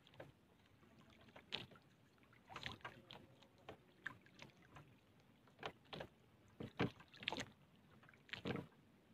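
Faint, scattered rustles and light knocks from fishing gear being handled by hand in a small boat.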